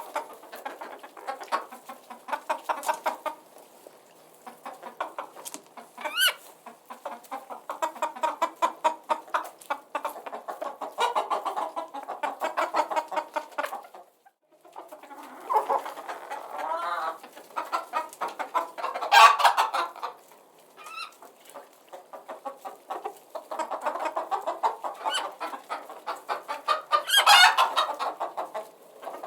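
Chickens clucking in rapid runs, with a few louder calls, the loudest about two-thirds of the way through and again near the end, and a brief lull about halfway.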